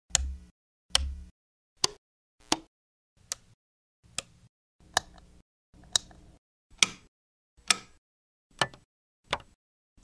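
Power switches being flipped, one sharp click after another, about a dozen at roughly one per second, each slightly different; the first two carry a heavier low thump.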